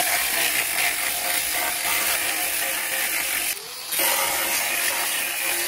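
A $15 angle grinder cutting into a chrome-plated steel bumper, giving a steady, loud grinding noise. About three and a half seconds in it drops away for half a second, then bites in again.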